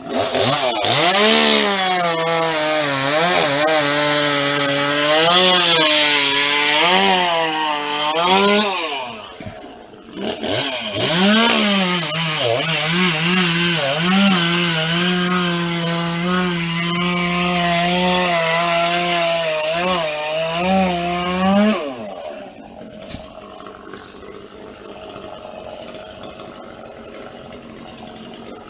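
Chainsaw running at full throttle and cutting wood, its engine note dipping and recovering again and again as it loads up in the cut. It eases off briefly about ten seconds in, resumes, and drops away to a much quieter sound some seven seconds before the end.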